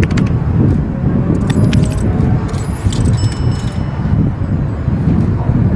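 Cessna 208B Grand Caravan's single turboprop engine and propeller heard from the ground as the aircraft approaches: a loud, steady, low rumble. Light metallic clicks and jingles come in briefly about one and a half to three seconds in.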